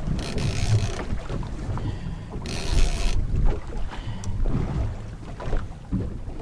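Wind buffeting the microphone over the low wash of sea around a small fishing boat, with two short gusts of hiss near the start and in the middle.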